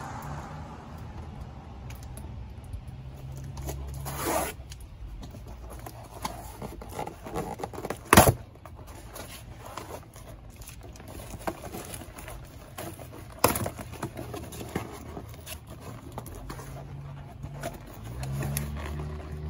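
Cardboard box being opened and handled: scraping and tearing of cardboard and tape, with scattered clicks and two sharp knocks, the loudest about eight seconds in and another about halfway through.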